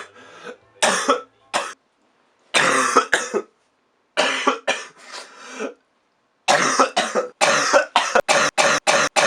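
A person coughing in bouts, a few coughs at a time with short breaks, then a fast, even run of short coughs over the last few seconds.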